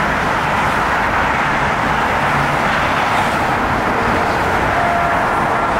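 Steady noise of highway traffic passing: an even, unbroken wash of vehicle and tyre sound from a stream of cars and trucks.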